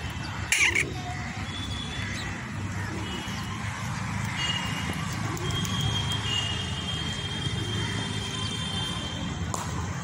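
A crow calls once, short and loud, about half a second in. Thin high whistling tones come and go over a steady low background rumble.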